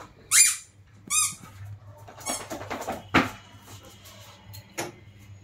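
Two short, high-pitched squeaks in the first second and a half, followed by shuffling and a sharp knock about three seconds in, then a lighter knock near the end.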